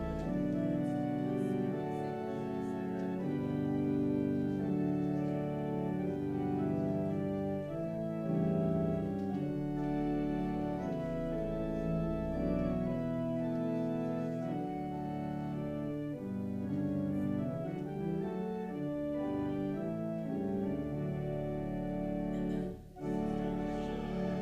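Church organ playing a hymn tune in slow, held chords, with a brief break between phrases near the end.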